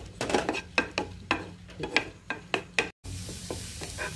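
Wooden spatula stirring minced garlic in hot oil in a nonstick frying pan, knocking and scraping about three times a second. After a brief gap about three seconds in, a steady sizzle of the garlic frying comes up under softer strokes.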